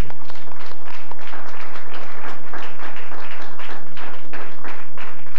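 Audience applauding a speaker at the end of a talk: many hands clapping in a dense patter that thins out near the end.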